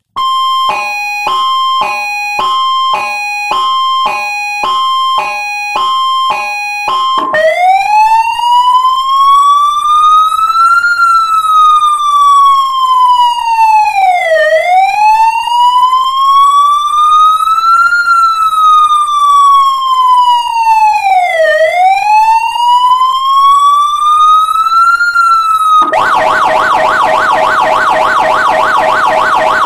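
Elfir Zura 4120 electronic police siren sounding, stepping through its tones. First a two-tone hi-lo alternating about once a second. At about seven seconds it switches to a slow wail that rises and falls over roughly seven seconds a cycle. Near the end it switches to a fast warble.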